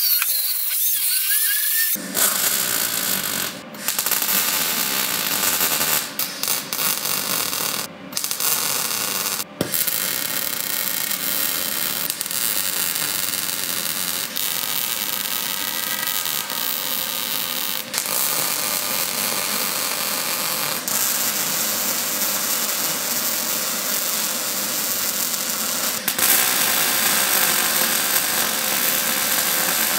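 An angle grinder cutting steel with a rising whine for about two seconds, then a MIG welder's steady crackling hiss as a steel square-tube mounting frame is welded, broken by a few short pauses between beads.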